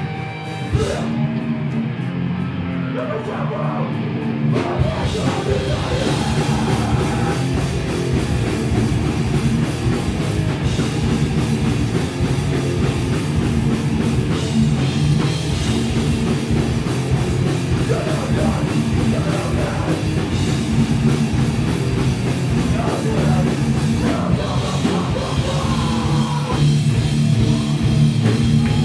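Hardcore punk band playing live: electric guitar, bass, drum kit and shouted vocals. After a sparser opening, the full band with driving drums comes in about five seconds in and plays on steadily.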